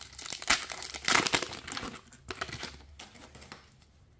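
Foil trading-card booster pack wrapper being torn open and crinkled by hand, in irregular crackly bursts for about three seconds, then quieter.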